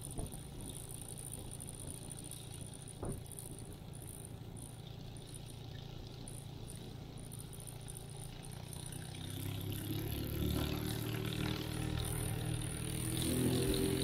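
Minimax 1100R ultralight's engine and propeller running at low idle while taxiing. From about ten seconds in the engine speeds up, growing steadily louder as power is added for takeoff.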